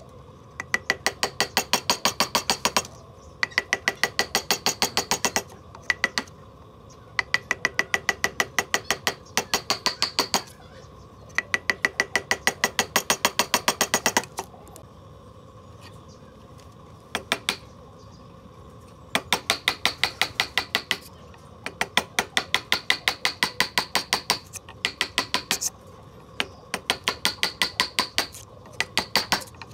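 A steel chisel is struck in quick runs of blows, about six a second, each blow ringing sharply as the chisel chops into a timber beam. Nine or ten runs of a few seconds each are separated by short pauses.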